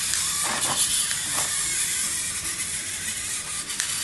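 LEGO Mindstorms motors and gears on a two-wheeled self-balancing robot whirring steadily as it drives and corrects its balance, a high, hissy, rasping whir.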